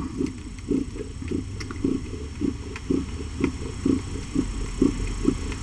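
Mother cat breathing fast, a soft rhythmic pulse about three to four times a second. It is the postpartum panting of a cat just after giving birth, which the carer calls normal.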